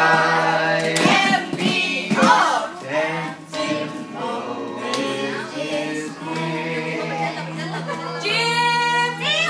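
Adults singing a children's action song together, holding some long notes.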